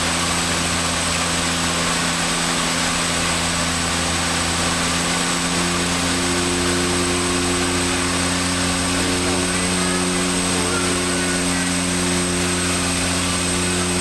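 A seaplane's propeller engines running steadily on landing approach, heard from inside the cockpit: a constant drone with a thin high whine above it. The engine note shifts slightly about halfway through.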